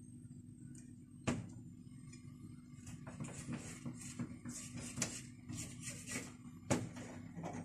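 Silicone spatula scraping and tapping around the rim of a nonstick frying pan, working under freshly set kunafa dough strands to loosen them, with a sharp knock about a second in and another near the end. A steady low hum underneath.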